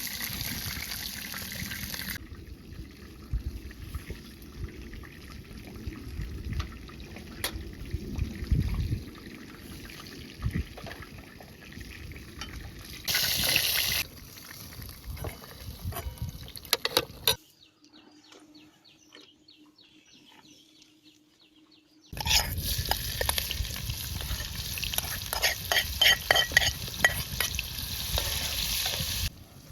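Food frying and sizzling in a pan while being stirred, with crackles and the clicks and knocks of a utensil, in several cut-together takes; it drops to a near-quiet stretch about two-thirds of the way through before the sizzling returns.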